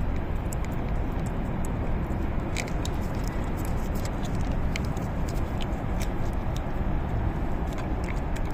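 Cat licking a lickable paste treat from a squeeze tube, with many short, wet smacking clicks of tongue and mouth scattered throughout. Under it runs a steady low rumbling noise.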